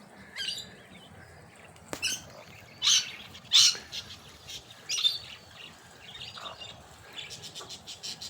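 Bird chirping: several short, high calls spaced a second or so apart, with a single sharp click about two seconds in and faint quick ticks near the end.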